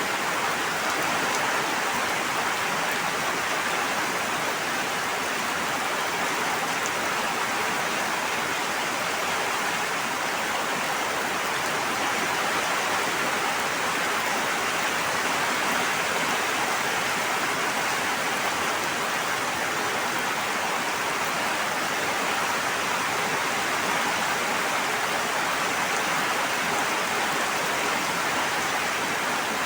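Steady, even rush of water with no separate drops, no swell and no thunder.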